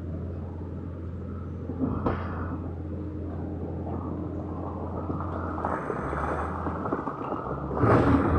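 Heavy machinery's diesel engine running steadily with a low hum. There is a brief clatter about two seconds in, and a louder burst of clattering noise near the end.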